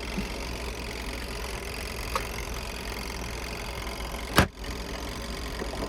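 Portable washer's spin dryer running with a steady motor hum as it spins wet clothes. A single sharp knock about four and a half seconds in.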